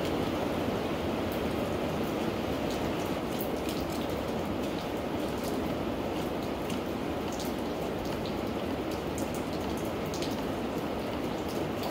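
Steady rain falling, with scattered sharp ticks of drops striking close by.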